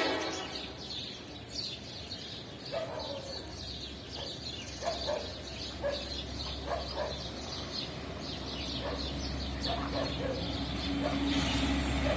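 Birds chirping in short, scattered calls, while a low rumble builds and grows louder over the second half.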